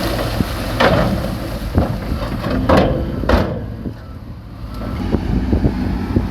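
Heavy earth-moving machine's diesel engine running, with several sharp clanks and knocks in the first half and a short lull about four seconds in.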